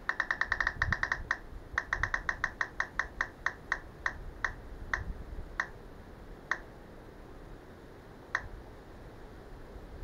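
A roulette-wheel spinner app ticking through a Samsung phone's speaker: rapid electronic clicks, about ten a second at first, that slow down steadily as the virtual wheel coasts to a stop, the last few coming seconds apart.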